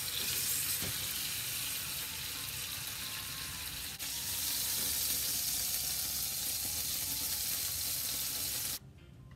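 Marinated steak frying in olive oil in a nonstick pan, a steady loud sizzle as the steaks are turned with tongs. The sizzle cuts off suddenly near the end.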